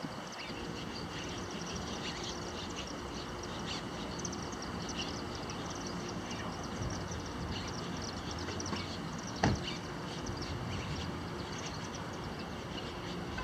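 Outdoor ambience: many birds chirping over a steady high insect drone, with a low rumble underneath. A single sharp click about nine and a half seconds in.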